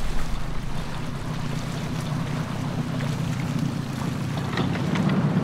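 Sea ambience: wind and water on the open harbour with a low steady rumble.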